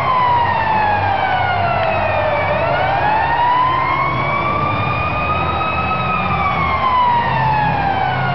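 Arena goal siren wailing, its pitch sliding slowly down and up in long sweeps of several seconds each, over steady background noise. It marks a home-team goal.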